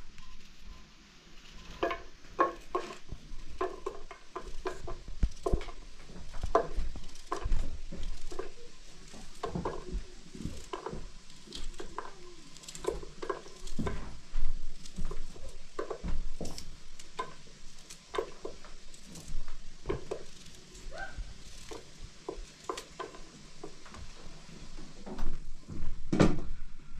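Eggs being worked over a metal pot: irregular light taps and cracks of eggshell, mixed with small clinks against the pot.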